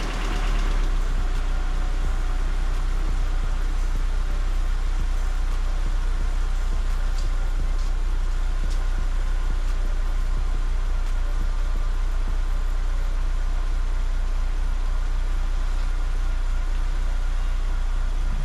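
BMW Z3 1.9i's M44 inline four-cylinder engine idling steadily, just after starting, freshly rebuilt with a new water pump, thermostat and auxiliary belt; it runs pretty quiet.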